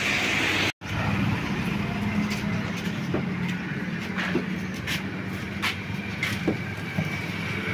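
Street traffic and a car's engine running at idle, with scattered clicks and knocks as the car's rear door is opened and someone climbs into the back seat. The sound cuts out for a moment about a second in.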